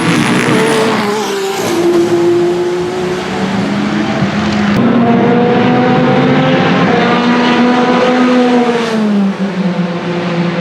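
Racing engines of endurance hypercar prototypes running on track. The engine notes climb through the gears, hold steady, then drop about nine seconds in as a car lifts off, with more than one engine heard at once. The sound changes abruptly about five seconds in.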